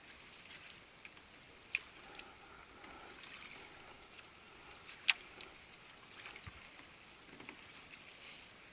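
Two sharp clicks about three and a half seconds apart, the second louder, over faint steady background noise.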